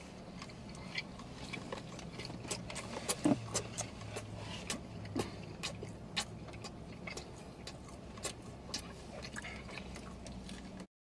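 Close-miked mouth noises: scattered wet lip smacks and tongue clicks, irregular and fairly quiet, over a low steady hum.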